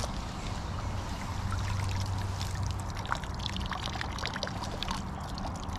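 Pond water pouring and dripping out of a mesh dip net as it is lifted from the water with a load of weeds, turning into a patter of small drips in the second half.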